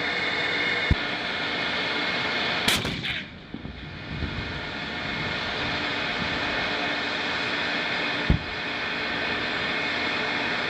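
M1 Abrams tanks' gas-turbine engines running with a steady whine as they drive, broken by sharp bangs about a second in, near three seconds and about eight seconds in.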